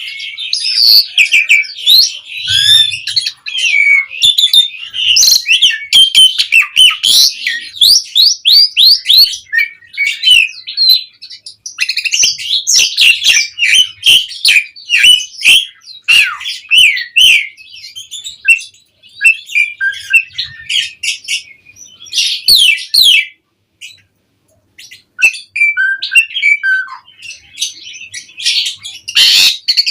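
Asian pied starling (jalak suren) in full song: a fast, varied run of chattering, whistled and squawking notes, with a short break about three-quarters of the way through.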